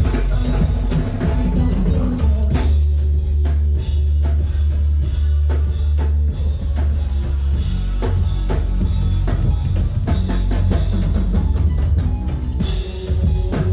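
Loud music with a drum kit and heavy bass playing over a sound system.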